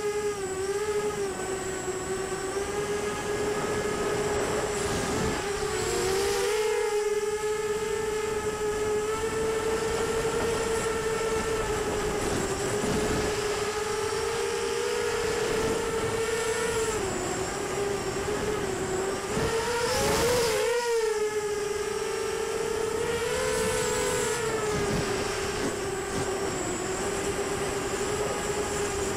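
Onboard sound of an FPV racing quad's brushless motors (Cobra 2204 2300Kv) spinning 5-inch HQ5045 bullnose props: a steady high whine throughout. Its pitch dips and rises slightly with the throttle, with brief swells about six and twenty seconds in.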